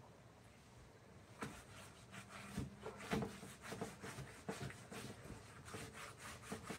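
Irregular scraping and rubbing strokes of a hand tool working wood, starting about a second and a half in.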